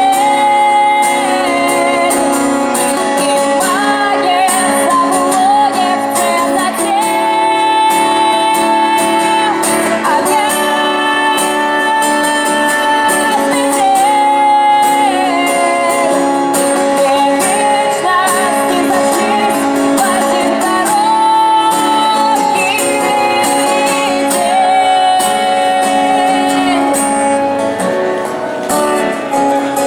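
Live song with a sung melody over guitar accompaniment, played continuously without a break.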